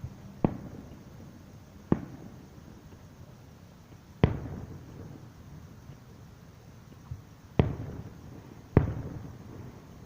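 Aerial firework shells bursting in a pyrotechnic display: five sharp booms at uneven intervals, each trailing off in a rumbling echo, with a couple of fainter pops between.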